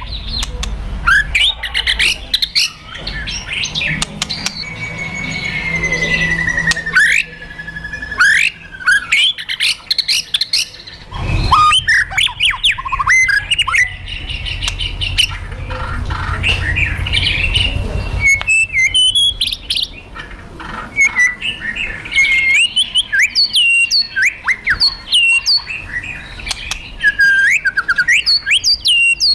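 White-rumped shama (murai batu) calling in its aggressive 'kretekan' and 'tembakan' style: rapid harsh crackling rattles mixed with sharp, hooked whistled notes, a long sliding whistle about six seconds in, and a run of repeated short whistles near the end. These are the agitated fighting calls used to provoke other shamas.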